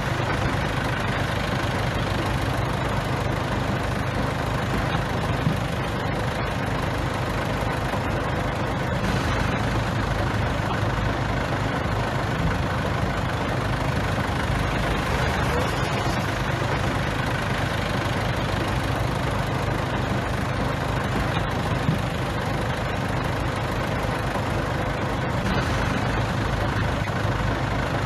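Bulldozer's diesel engine running steadily under work, without pauses or sharp changes.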